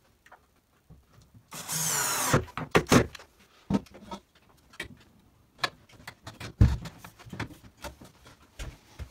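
A small cordless screwdriver runs for under a second, driving a screw into a wardrobe rail bracket. Irregular knocks and clinks follow as the chrome hanging rail is handled and dropped into its brackets, with one heavier knock past the middle.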